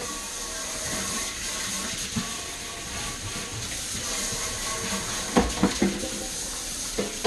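Kitchen tap turned on and running hard into the sink while dishes are washed, with a few clinks of dishes about five and a half seconds in and again near the end.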